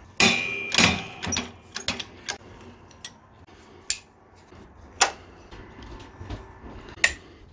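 Steel suspension parts and hand tools clinking and clanking as they are picked up and handled: a series of irregular metal knocks, the first with a short ring after it.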